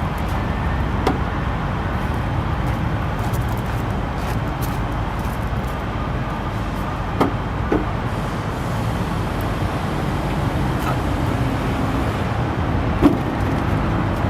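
Paccar PX7 diesel engine of a Kenworth T270 truck idling steadily, with a few light clicks and knocks and a sharper knock near the end.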